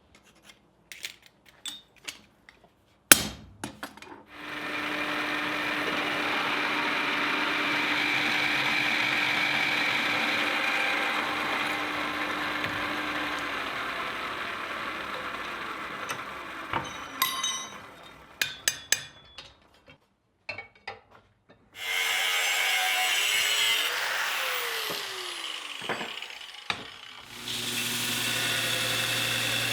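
A power tool runs in three stretches, winding down with a falling pitch after the first two. Between the runs come small clicks and knocks, with one sharp knock about three seconds in.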